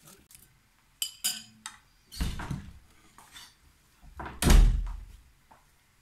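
Knocks from kitchenware being handled: a short sharp clink about a second in, then two dull thumps, the second and loudest about four and a half seconds in.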